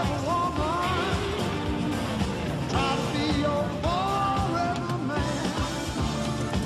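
Soundtrack song: singing over a band with a steady drum beat.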